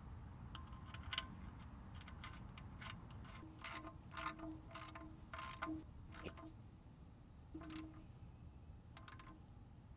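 Socket ratchet clicking in short runs as the oil drain plug is tightened into the steel oil pan.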